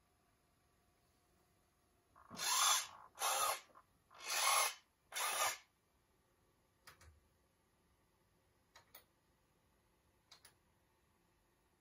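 The Nikko Sand Spider RC buggy's small electric motor and gears running in four short bursts, each under a second, followed by a few faint clicks.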